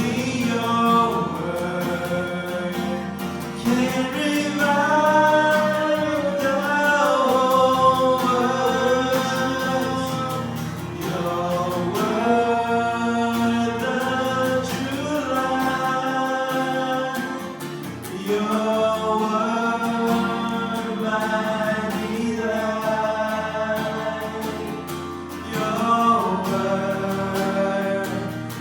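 A worship song: voices singing long, held phrases over instrumental accompaniment, with short breaks between phrases every several seconds.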